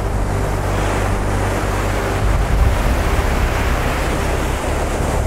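Surf breaking along the shore mixed with wind buffeting the microphone: a steady rushing noise with a low rumble.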